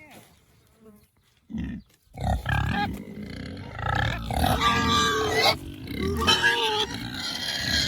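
Pigs grunting and squealing as they jostle one another, mostly quiet at first and then a loud, continuous run of calls from about two seconds in.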